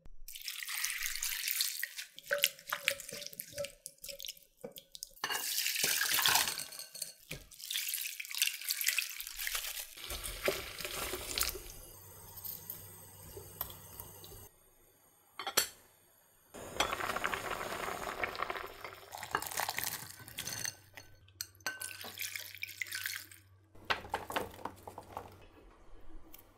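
Water running and splashing from a kitchen tap, turned on and off in several spells, with a single sharp knock in a quiet gap about sixteen seconds in.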